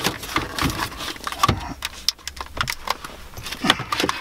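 Irregular clicks, knocks and light rattles as a car stereo head unit's metal case is slid out of its dashboard slot and handled by its wiring connectors.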